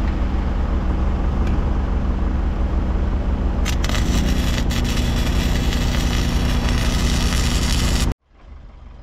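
Tractor engine idling steadily, with a few sharp metal clinks as a steel rod is worked against the hitch's lifting arm. The engine note shifts up slightly about four seconds in, and the sound cuts off abruptly near the end.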